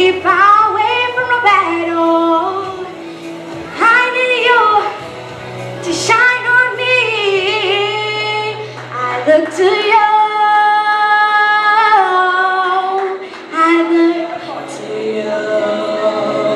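A girl singing a slow ballad solo into a handheld microphone over instrumental accompaniment. She sings long held notes, some with vibrato, and melodic runs, with brief breaks between phrases.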